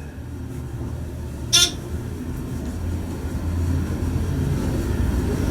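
Hydraulic elevator car in motion: a steady low rumble that slowly grows louder, with one brief high-pitched sound about a second and a half in.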